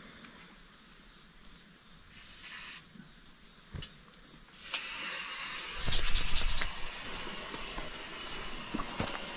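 Insects trilling steadily in the background. About five seconds in, a rushing hiss comes up, with a brief cluster of knocks and scraping around six seconds.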